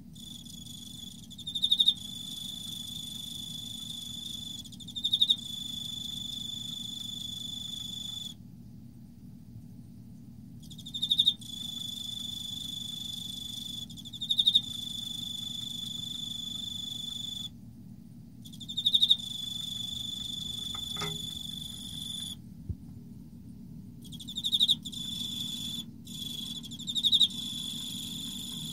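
Male Emma field cricket singing its courtship song: a clear, ringing trill near 4 kHz, held for several seconds at a time, with a few short pauses, and louder bursts of chirps every few seconds.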